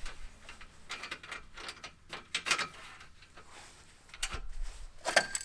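Irregular clicks, light knocks and scraping of a metal-framed solar panel being handled against its roof mounting rails, with a louder rattle near the end.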